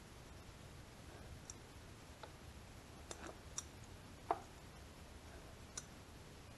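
A handful of faint, sharp clicks and ticks, about six, the loudest a little past the middle, as small Mikuni carburetor parts are handled and fitted together during reassembly.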